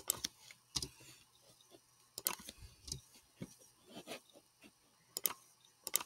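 Computer keyboard keys clicking: scattered single presses and close pairs, roughly one every half second to a second, as text is edited.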